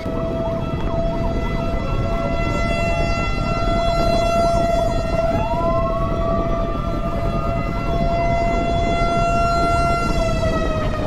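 Jet aircraft engines running: a steady high-pitched whine of several held tones over a constant rushing roar, the whine dropping slightly in pitch near the end.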